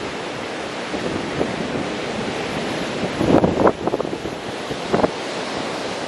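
Ocean surf breaking on a sandy beach, a steady rushing wash of white water. Wind gusts buffet the microphone in uneven thumps about three seconds in and again near five seconds.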